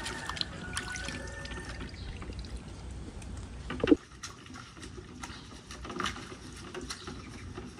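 Water sloshing and splashing in a metal basin as duck eggs are scrubbed by hand with wet rice straw, with small clicks and one louder thump about four seconds in.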